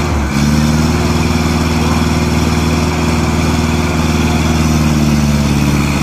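Ajax Fiori Argo 2000 self-loading concrete mixer's engine running steadily while the machine works its loading bucket; its pitch steps up a little just after the start.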